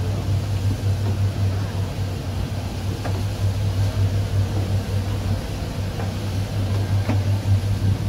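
Ship's engine running with a steady low drone, with faint voices in the background.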